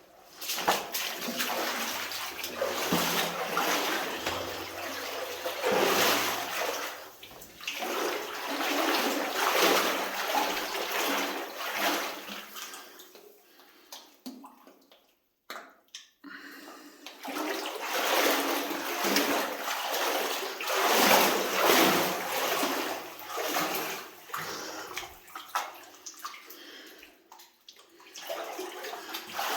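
A person wading through water in a flooded mine adit, with repeated splashing and sloshing in uneven surges, broken by a short pause about halfway through.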